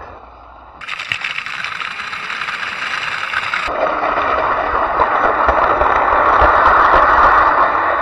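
Electric drift trike's PVC-sleeved rear wheels rolling and sliding across rough asphalt, a loud, continuous scraping rumble. It drops briefly just after the start, then changes abruptly about a second in and again near four seconds.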